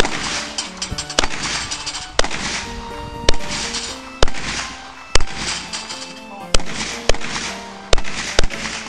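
A string of about ten handgun shots, fired unevenly at roughly one shot a second.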